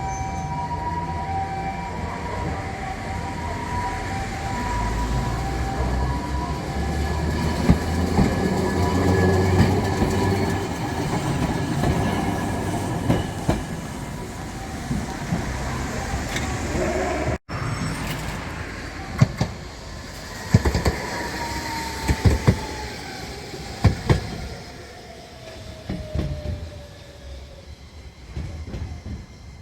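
A train passing over a level crossing: a two-tone crossing warning signal fades in the first few seconds while a low rail rumble builds and peaks. After a short break in the sound, sharp wheel clacks over rail joints come with a long falling electric whine as a rail vehicle slows.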